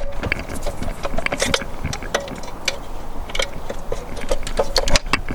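Irregular small metallic clicks and knocks as a stuck valve cover is worked and pried loose by hand from the engine head.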